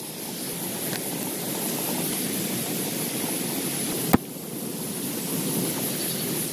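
Heavy rain falling on a tent, a steady dense rush of noise, with a single sharp click about four seconds in.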